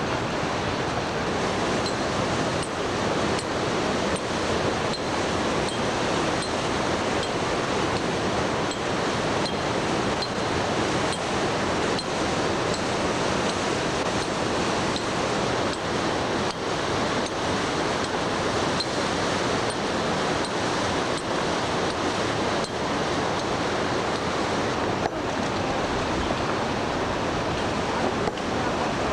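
Steady rushing noise of a flood-swollen mountain stream, running strong without letup.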